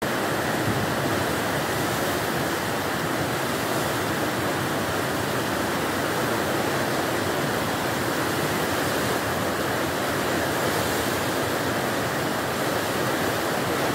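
River in high flood: a steady, unbroken rush of fast-running floodwater.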